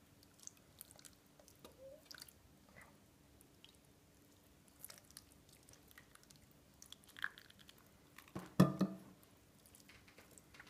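White sauce poured from a stainless steel saucepan into a ceramic lasagna dish: faint soft clicks and small handling sounds, with one louder knock about eight and a half seconds in.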